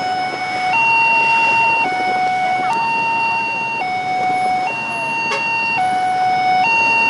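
A two-tone siren alternating between a high and a low note, about one note a second, over a steady noisy background.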